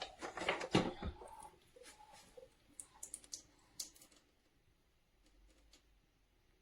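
A run of sharp clicks and light knocks, densest in the first second, thinning to a few scattered clicks and dying away after about four seconds.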